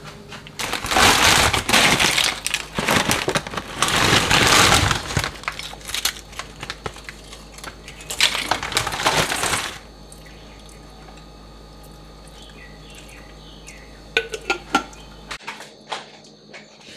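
Tortilla chips being tipped and set out on a ceramic plate: crisp crackling and light clattering in three bursts over the first ten seconds. A few light clicks follow near the end.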